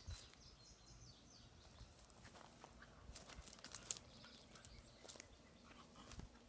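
Near silence: faint outdoor ambience with a few soft high chirps near the start and scattered small clicks and rustles.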